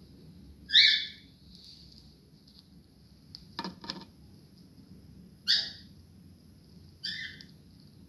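Cockatiel giving three short, loud calls: one about a second in, one past the middle and one near the end. A brief patter of clicks falls between the first two calls.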